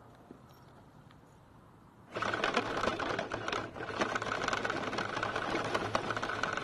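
A scale RC car heard from its onboard camera. About two seconds in, its motor and gear train start suddenly with a steady whine over a dense, fast rattle as it drives over gravel. The sound falters briefly about a second later, then runs on.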